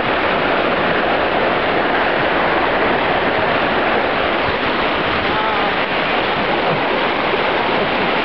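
Fast-flowing river water rushing steadily: a loud, even noise of a strong current.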